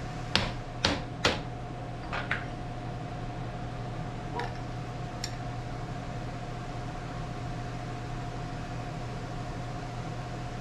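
A hammer tapping a hard cast crank lever down in a machine vise, seating it level on lead ingot bars: three sharp taps in little more than a second, two lighter ones, then two faint clicks. A steady hum with a constant tone runs underneath.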